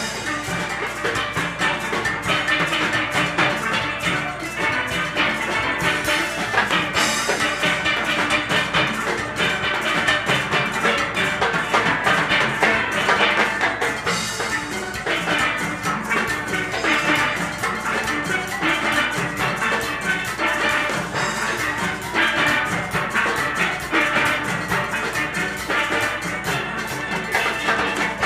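Steel orchestra playing in full ensemble: many steelpans struck together in a continuous, rhythmic piece, backed by drums.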